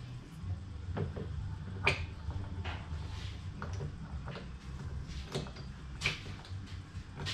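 Scattered light metallic clinks and knocks, about seven of them a second or so apart, as a V8 engine hanging from a hoist chain is worked onto its engine mounts. Under them runs a low steady hum.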